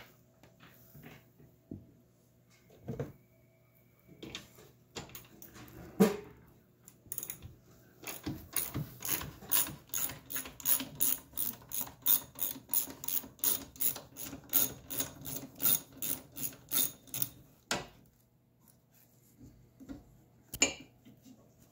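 Hand ratchet wrench turning a hardtop bolt: an even run of sharp clicks, a few a second, lasting about ten seconds. It follows a few scattered knocks, the loudest about six seconds in.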